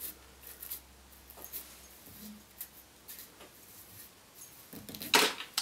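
Faint, scattered scratching and rustling of a small fly-tying brush and fingertips working through the spun deer hair of a fly to free trapped hairs. Near the end comes one louder, short rustle.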